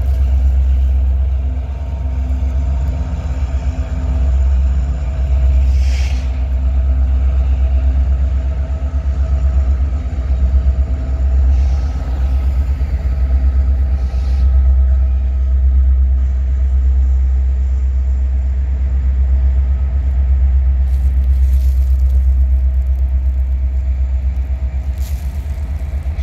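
Canadian National freight train rolling past, its diesel locomotives and cars making a loud, deep, steady rumble.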